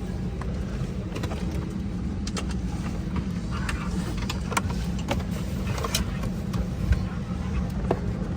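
Airbus A320neo passenger cabin noise: a steady low rumble, with scattered small clicks and knocks.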